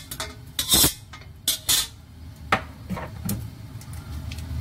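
Metal spatula scraping and clanking against a stainless steel wok and a plate as scrambled egg is scooped out: several short, separate scrapes and knocks.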